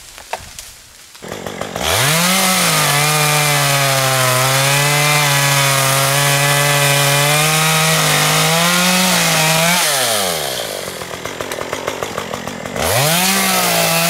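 Chainsaw revving up about two seconds in, then running at a steady, slightly lower pitch under load as it cuts timber. Near ten seconds it winds down, and it revs up again near the end.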